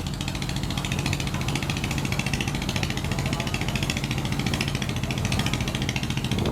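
A boat's diesel engine running steadily with a fast, even throb.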